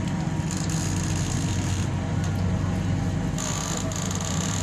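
A fishing boat's engine running steadily, with a high hiss of water that comes and goes twice.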